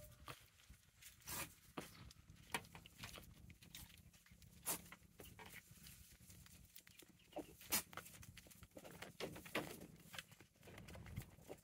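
Doe goat licking her newborn kid clean: quiet, irregular wet licks and mouth smacks.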